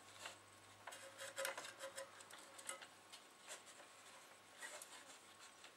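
Faint scattered light clicks and rubbing of hands handling plastic and metal parts inside an opened CD player's chassis, over a low steady hum.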